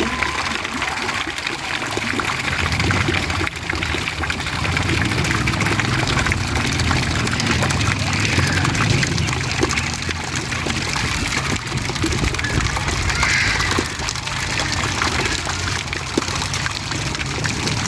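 Steady rush of running water, with low rumbling underneath.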